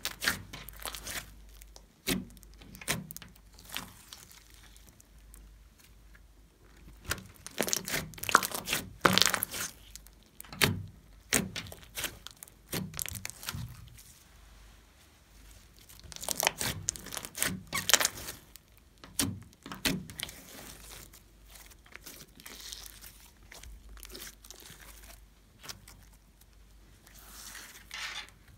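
Thick mixed slime being squeezed, stretched and pulled apart by hand, giving bursts of crackling and popping with quiet pauses between.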